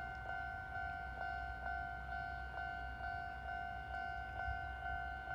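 Japanese railway level-crossing warning bell ringing, a steady two-tone electronic strike repeating about twice a second, the signal that a train is approaching the crossing. A low rumble runs underneath.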